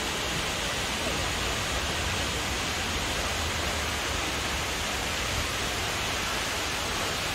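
Steady, even rush of the Acquafraggia waterfalls, a tall double cascade pouring down a rock face.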